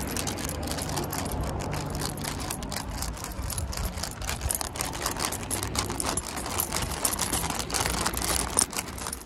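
Paper sandwich bag rustling and crinkling in the hand, with a bunch of metal keys on a ring jangling against it, a dense run of irregular crackles and clicks. Underneath runs a low rumble.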